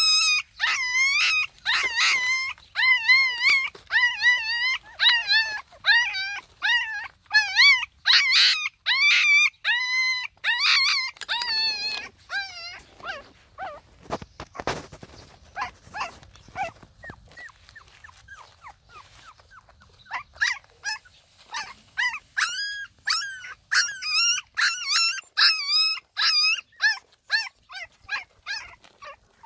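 Puppies whining and crying, a long run of short high-pitched cries several a second that thin out and fade in the middle, then pick up again.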